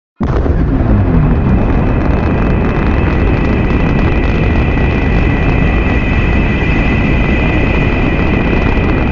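Monster sound effect for a turtle kaiju: a loud, dense, steady rumble with a steady high whine on top, cutting in suddenly a moment in and held without a break.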